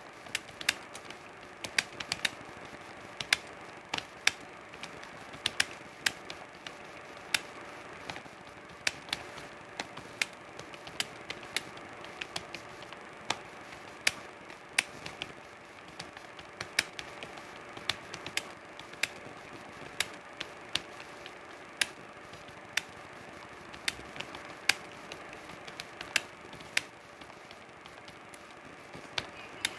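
Computer keyboard typing: sharp keystroke clicks at an irregular pace of a few a second, with a faint steady hum underneath.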